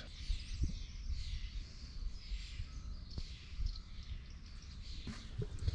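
Faint outdoor background: birds chirping over a low, uneven rumble.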